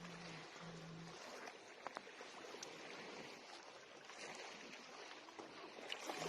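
Steady rushing of flowing water, with a low hum in the first second and a few faint clicks.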